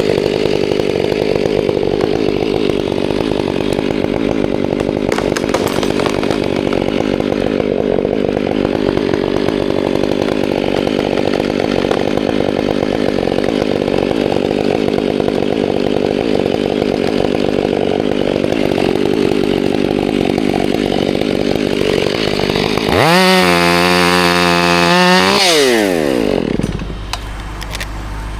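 Chainsaw cutting through wood under steady load, then revving high with a sharply rising pitch about 23 seconds in as it comes free of the cut, before dropping back to idle near the end.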